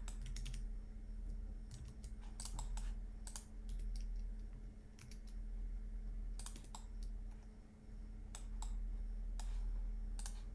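Computer keyboard keystrokes and mouse clicks at an irregular pace, some in quick clusters, over a steady low hum.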